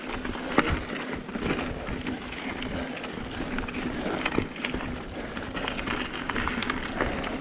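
Mountain bike rolling over a dry dirt trail: continuous tyre noise on dirt with frequent short clicks and knocks as the bike rattles over rocks and roots, and a steady low hum underneath.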